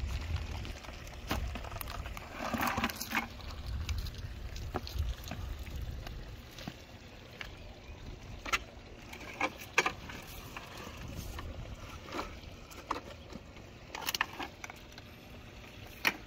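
Scattered knocks, clicks and rattles as fish on a rope stringer are handled and lowered into a plastic bucket among rocks. A low wind rumble on the microphone fades out after the first several seconds.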